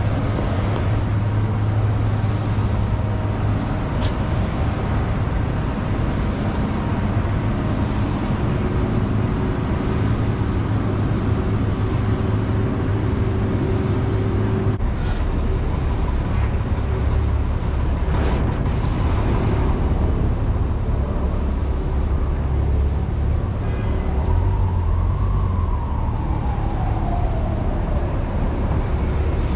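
City street traffic: a steady low rumble of passing cars and trucks. Near the end a whine falls steadily in pitch.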